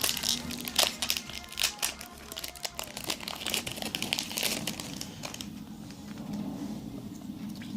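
Foil Pokémon booster pack wrapper crinkling as it is handled and opened, a busy irregular crackle for about five seconds that then dies down.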